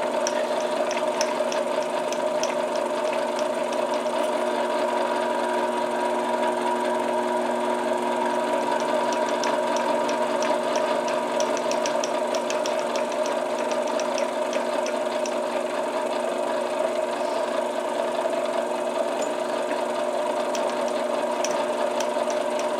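Benchtop metal lathe running steadily, its spindle turning an acrylic pipe-stem blank while a pilot drill bit in the tailstock chuck is fed slowly into it: an even mechanical hum of several steady tones, with faint scattered ticks.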